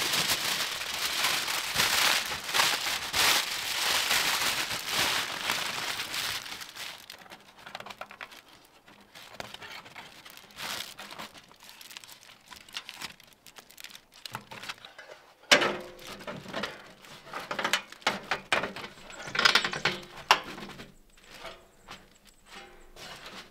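Aluminum foil crinkling loudly as it is wrapped and pressed around a metal stovepipe for the first several seconds. Then quieter scattered clicks and scrapes of pliers and wire follow, with a sharp click past the middle and a cluster of metal taps and scrapes near the end as a sheet-metal pipe cap is fitted.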